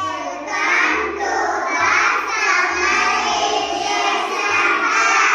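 A class of young children singing together in unison, many voices at once, with background music and a low pulsing beat underneath.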